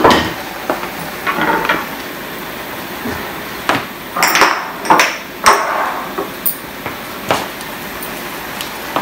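Kitchen clatter: a series of sharp knocks and clinks of plates, dishes and utensils being picked up and set down on a stone countertop, over a steady low hiss.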